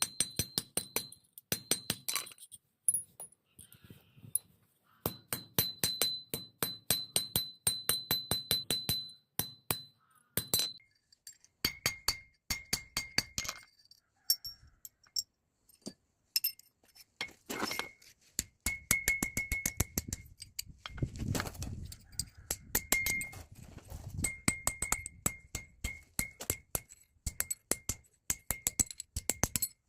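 Quick runs of light metal-on-metal taps and clinks, each with a short bright ring, broken by brief pauses. The ring sits higher in pitch at first and lower later on.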